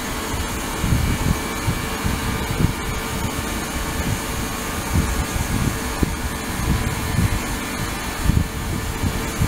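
Ultrasonic cleaning tank running: a steady hiss with faint steady tones in it, under irregular low rumbles.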